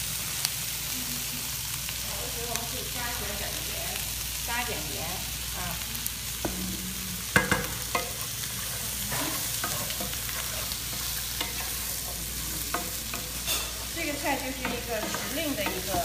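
Stir-fry of onion, peppers, wood ear, broad beans and tofu slices sizzling steadily in an electric skillet as it is stirred with a wooden spatula. Occasional knocks cut through the sizzle, the loudest about seven seconds in.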